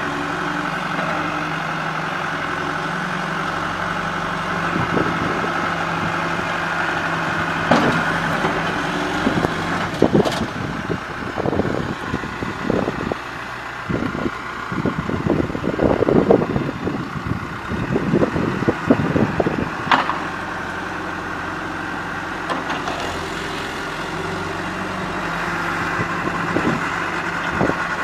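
John Deere 310 backhoe loader's diesel engine running steadily, with a run of irregular knocks and clanks from about ten seconds in until about twenty seconds in.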